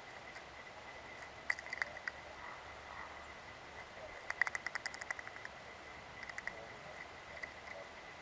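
Steller's jay's bill tapping and clicking on peanut shells and the dry wooden log, a few scattered taps and then a quick run of light clicks about halfway through.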